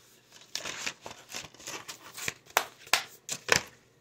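Handling noise as hands move a plastic disc case near the microphone: a run of short rustles and clicks. The sharpest come in the last second and a half.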